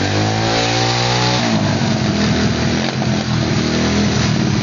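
125cc pitbike engine revved once, its pitch rising for about a second and a half before falling back, then running steadily at a low speed.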